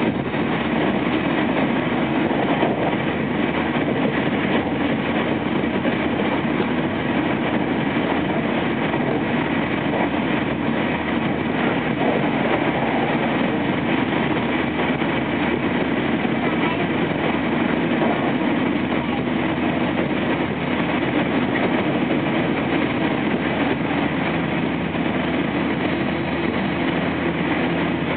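Running sound of a Toshiba-equipped JR West 225 series electric train at steady speed, heard from inside the passenger car: a steady rumble of wheels on rail.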